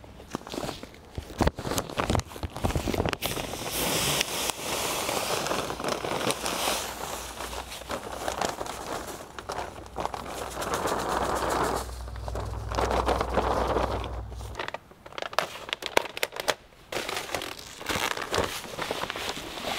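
Crinkling, rustling and tearing of a fertilizer bag as it is opened and handled, with scattered sharp crackles. Near the end the bag is tipped and granular fertilizer starts to pour into the spreader's plastic hopper.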